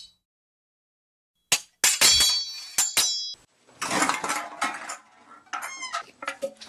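Crash of breaking glass: several sharp clinking impacts with a brief high ringing, starting about a second and a half in, then a scattered clatter.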